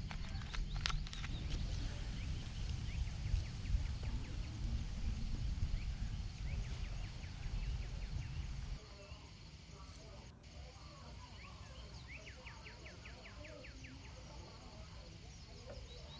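Outdoor background noise: a low rumble with a few sharp clicks for the first half, then it drops abruptly to quieter ambience with a fast run of high chirps.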